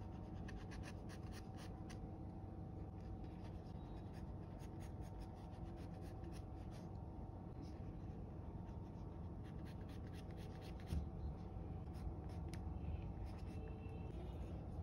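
Graphite pencil sketching on drawing paper: groups of short, quick scratching strokes coming in several bursts with pauses between them.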